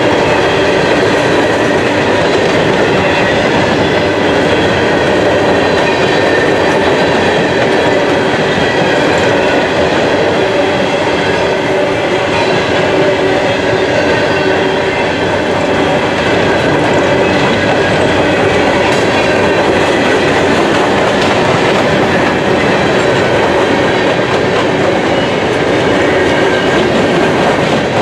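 Empty open-hopper coal cars of a freight train rolling past at steady speed, a loud continuous rumble of steel wheels on the rails with faint steady high tones running through it.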